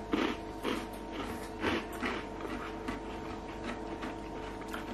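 A small crunchy pebernød (Danish spice cookie) being bitten and chewed: a string of short, irregular crunches. A faint steady hum runs underneath.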